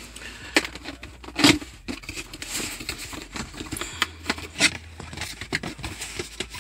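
A cardboard product box being opened by hand: irregular scraping, rustling and tapping of cardboard and packaging, with a sharper knock about a second and a half in.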